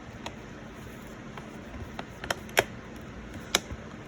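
Snap-in connectors of a replacement HP Pavilion x360 touch screen clicking into place as the panel is pressed into the laptop's frame. A series of sharp separate clicks, the loudest about two and a half seconds in.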